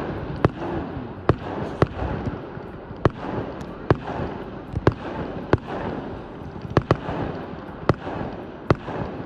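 Fireworks display: a rapid series of sharp bangs from bursting shells, somewhat more than one a second.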